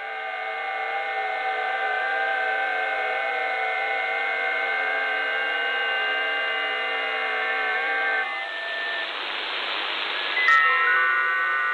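FT8 digital-mode signals on 20 m (14.074 MHz) received in USB by an AMNVOLT Si4732 mini receiver: many steady tones at once, each stepping up and down in pitch. About eight seconds in the tones stop, leaving band hiss, then a short click and a fresh set of FT8 tones begins.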